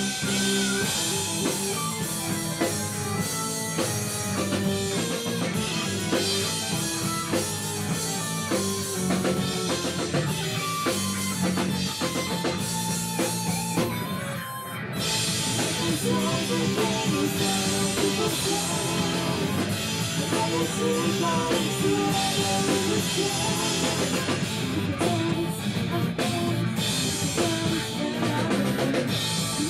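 Rock band playing: drum kit, electric guitar and bass, with a short drop in level about halfway through before the full band comes back.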